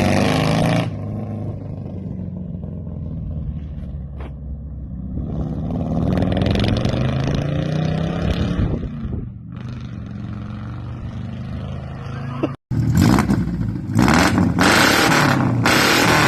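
Four-cylinder engine with a true dual exhaust, revving and running under way, its pitch rising and falling several times. After a sudden break about three quarters of the way through, it comes back louder and revving harder.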